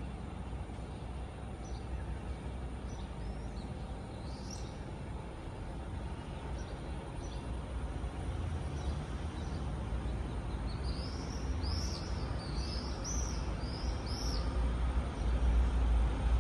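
Outdoor ambience: a steady low rumble with small birds chirping over it, the chirps sparse at first and coming thick and fast about two-thirds of the way through.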